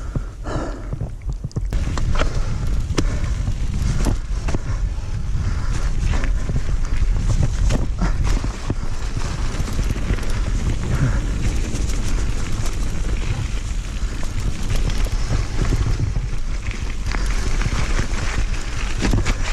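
Heavy low rumble of wind buffeting an action-camera microphone, with the rattle and knocks of a mountain bike moving over rough trail.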